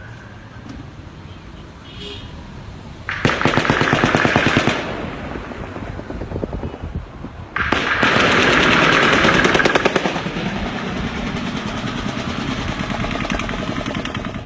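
Rapid gunfire that sounds automatic, in two long bursts: the first lasts about a second and a half, and the second, starting about seven and a half seconds in, lasts about two and a half seconds. Fainter fire runs on after it, all as captured on a phone video.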